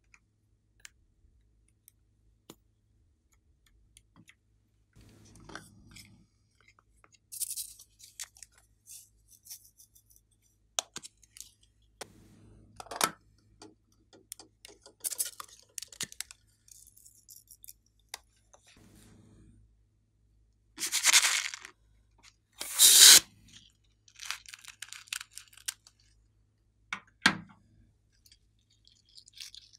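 Close-up handling noises: small plastic clicks and taps, then two loud noisy bursts about a second each, two-thirds of the way through, and some crackling after, as a soft rubber pineapple squishy toy is squeezed and its filling pulled out.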